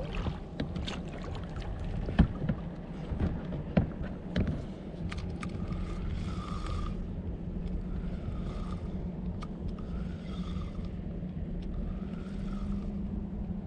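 Spinning reel cranked in short turns about every two seconds, a stop-and-go retrieve of a soft-plastic lure on a jig head, over a steady low hum. A few clicks and knocks come in the first few seconds.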